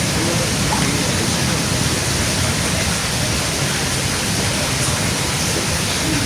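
Steady, even rushing noise, loud and unchanging, with the sound of heavy rain or falling water.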